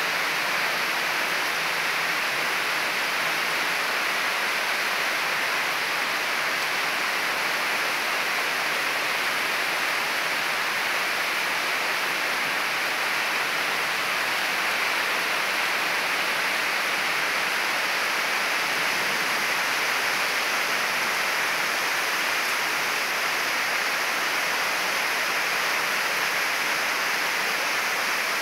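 Heavy monsoon rain falling steadily on trees, palm fronds and a lawn, an even unbroken hiss.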